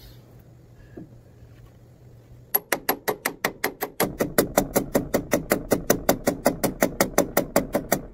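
Hyper Tough hand ratchet clicking fast and evenly, about six clicks a second, as it is swung back and forth to drive the hex set screws into a conveyor drive sprocket's hub. The clicking starts about two and a half seconds in, after a quiet stretch with one light knock.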